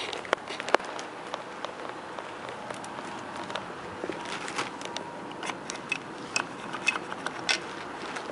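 Handling noise from a handheld phone camera being moved: irregular sharp clicks and crackles over a steady background hiss.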